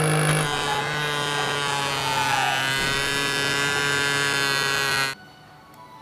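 Small electric motor of a homemade plastic-bottle vacuum cleaner running at a steady pitch with a buzzing hum. It cuts off suddenly about five seconds in.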